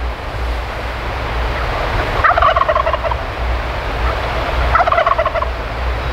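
Two gobbles from a wild turkey tom, each a quick rattling burst lasting under a second, about two and a half seconds apart, over a steady low wind rumble on the microphone.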